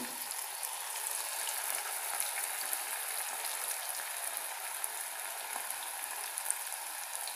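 Grated-potato pakoras deep-frying in hot oil: a steady sizzle with small scattered crackles.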